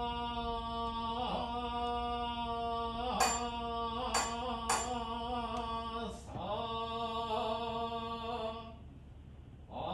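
A male Shingon Buddhist priest chanting a sutra on one steady held pitch in long phrases, pausing for breath near the end before the chant resumes.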